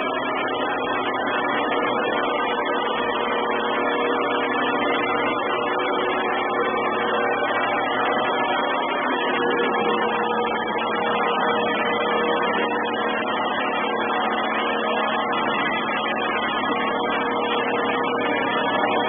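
Samsung robot vacuum cleaner running steadily: an even motor-and-fan drone with several steady whine tones, heavily distorted through the camera microphone.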